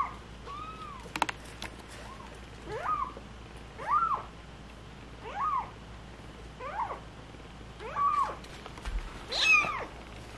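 Young kitten meowing over and over: short, high calls that rise and fall, about one a second, the loudest and shrillest near the end.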